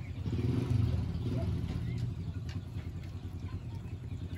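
A motor vehicle engine running close by. Its low hum swells about half a second in, then slowly fades.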